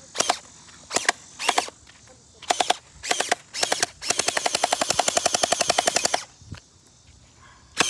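Electric gel blasters firing: six short bursts of a few rapid shots each, then about halfway one long full-auto burst lasting about two seconds.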